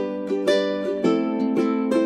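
Background music: a plucked string instrument picking a light, steady melody of short notes, with a chord change about a second in.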